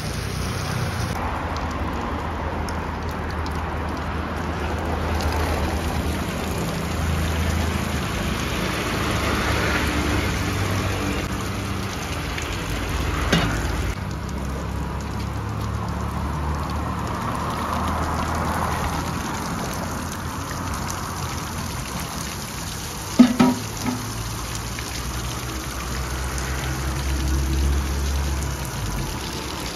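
Water pattering and splashing steadily as it drains through the holes of a large perforated aluminium colander full of soaked poha onto a concrete drain below. Two brief knocks stand out, the louder one about two-thirds of the way through.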